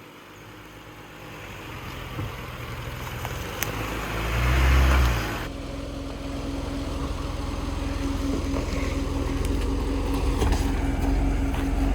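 Off-road vehicle engine running and getting louder, with a brief loud surge about halfway through. Just after it the sound changes abruptly to a steadier engine drone with a faint steady hum over it.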